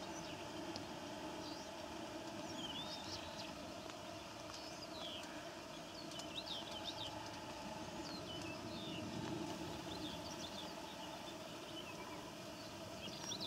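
Faint, steady whine of a swarm of mosquitoes inside a tent, some clinging to the fabric and mesh. Small birds outside chirp in short high calls every second or two.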